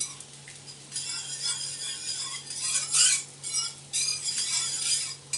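A spoon stirring a sauce in a frying pan, scraping across the pan in repeated strokes about once a second, as butter is worked into the sauce to finish it.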